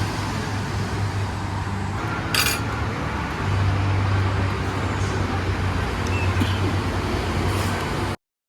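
Road traffic noise with a low, steady engine hum that comes and goes, and a brief clatter about two and a half seconds in. The sound cuts off suddenly near the end.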